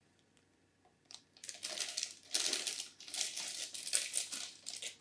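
Plastic packaging crinkling and rustling in uneven bursts as it is handled, ending in a sharper knock.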